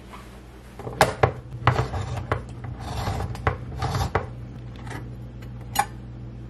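Handheld can opener cutting around the rim of a metal can, a run of uneven clicks and rasping strokes as the handle is turned, then one sharp click near the end.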